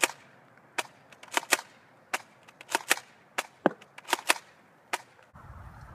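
Toy gun firing a rapid, irregular series of about a dozen sharp cracks, some in quick pairs. Near the end a low steady rumble sets in.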